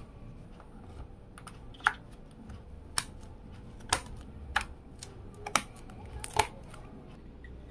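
DDR4 memory sticks being pressed into a motherboard's DIMM slots, giving about six sharp plastic clicks spread over several seconds as the modules seat and the slot retention clips snap shut.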